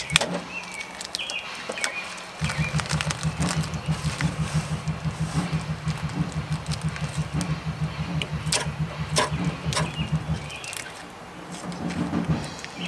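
Small lawn mower engine being started: a rhythmic chugging begins a couple of seconds in, runs for about eight seconds and stops, then starts again near the end. Birds chirp over it.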